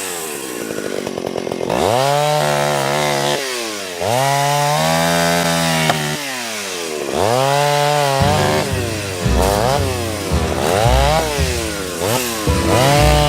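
Antique Stihl two-stroke chainsaw revving up and down again and again, its pitch rising and falling about every two seconds. From about eight seconds in it runs rougher, with a pulsing low rumble.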